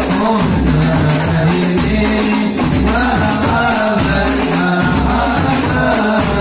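A group of men singing sholawat, a devotional song in praise of the Prophet, in unison. They are accompanied by hand-beaten rebana frame drums, with a deep drum beat about once a second.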